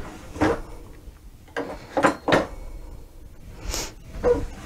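Kitchen drawer being opened and rummaged through for a spatula: a handful of short knocks and utensil clatters, with a brief hiss near the end.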